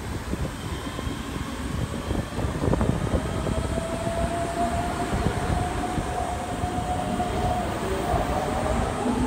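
Keikyu 600-series electric train pulling out of the station. A low rumble runs throughout, and about three seconds in the traction motors' whine begins, rising slowly in pitch as the train gathers speed.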